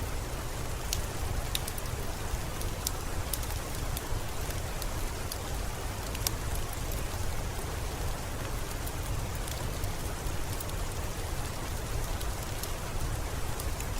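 Steady rain falling over a low, even rumble, with the sharp, irregular pops and crackles of a wood fire scattered through it.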